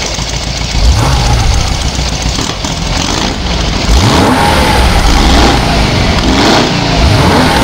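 A vehicle engine running and revving several times, its pitch rising and falling with each rev.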